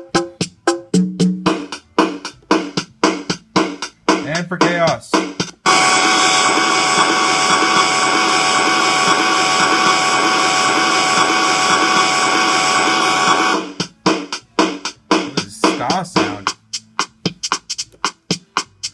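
Circuit-bent Yamaha DD-6 drum pad glitching in its chaos setting, its sounds cross-wired through a matrix patchbay: fast, stuttering clicks and chopped drum hits, then a dense, buzzing sustained tone from about six seconds in that holds for about eight seconds and cuts off, then stuttering hits again.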